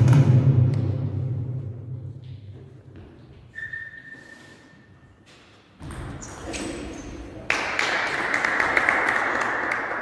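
Table tennis ball tapping on rackets and the table during a rally, over a steady rush of hall noise that jumps up in the second half.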